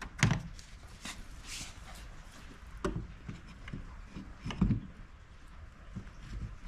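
Charging connector being handled and pushed into an F-150 Lightning's charge port: a few scattered plastic knocks and clicks, with a firmer clunk about four and a half seconds in as the plug seats.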